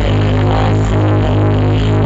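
Electronic dance music with a heavy, steady bass, played loud through a large outdoor sound-system speaker rig (sound horeg).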